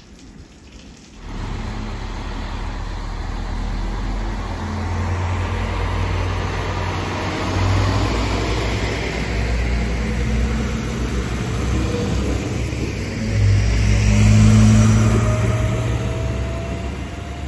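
Arriva Alstom Coradia Lint 41 diesel multiple unit's underfloor diesel engines working as the railcar pulls away from the platform. The engine note builds in loudness, peaking about three quarters of the way through, with a faint rising whine near the end.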